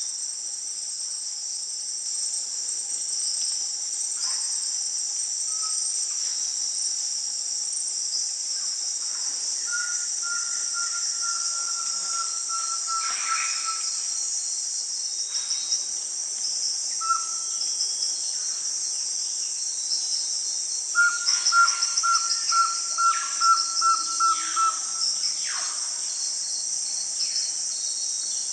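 A small crake singing loud, long runs of rapid repeated notes, once about a third of the way in and again later, over a steady high-pitched insect chorus.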